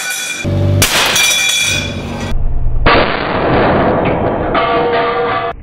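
A loud crash as a spot weld tears and a one-tonne pallet of steel drops to the ground.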